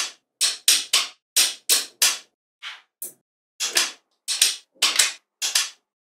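Small magnetic balls snapping onto one another in a series of sharp clicks, a few each second at uneven intervals, as a structure is built up ball by ball.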